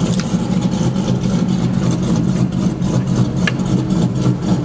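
An engine idling steadily as a low, even hum, with a couple of light clicks over it.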